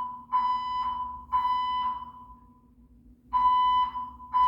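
Building fire alarm sounding the temporal-three evacuation signal: loud beeping tones about a second apart in sets of three, with a pause of about a second between sets. A faint low hum runs underneath. The alarm is a false one, set off when no fire is present.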